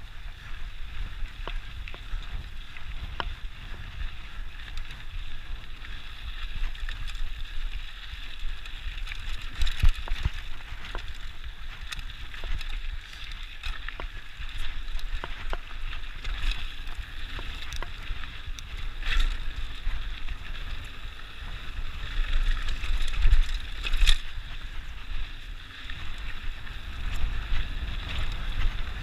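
Mountain bike rolling fast down a dirt singletrack, with tyre noise on the loose dirt and the bike rattling and knocking over bumps, a few sharper knocks standing out. Wind buffets the microphone throughout with a low rumble.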